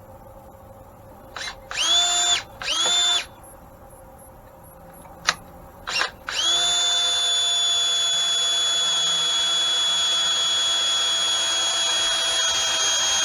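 Electric drill motor whining: two short trigger bursts about two seconds in, then a long steady run from about six seconds in, drilling a hole to be tapped for a set screw.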